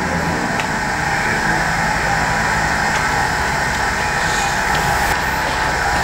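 A steady mechanical hum and hiss with a low rumble underneath and a few faint ticks.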